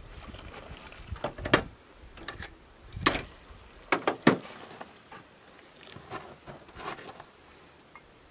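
Hot pickling brine poured from a stainless steel pot into glass mason jars packed with eggs: a low trickle broken by a handful of sharp clinks, most of them in the first half.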